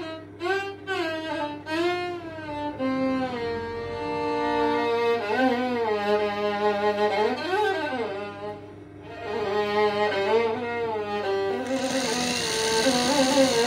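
Background music: a violin melody with sliding pitch over a string accompaniment.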